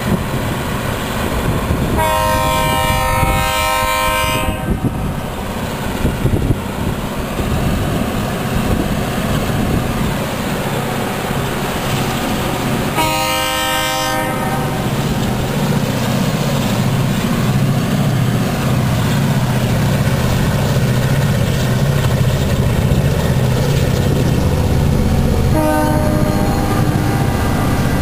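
EMD diesel locomotives on an ore train sounding their air horn for a road crossing: a long blast about two seconds in, a shorter one near the middle and a brief toot near the end. Under it the diesel engines' low rumble grows louder as the locomotives come up close.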